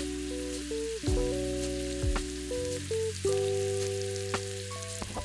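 Chopped onion, carrot and celery sizzling as they sauté in an Instant Pot's stainless steel pot. Background music of held chords with a few low beats plays alongside.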